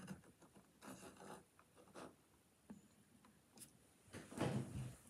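Faint handling noises: soft rustling and a few light clicks, with a louder rustle near the end.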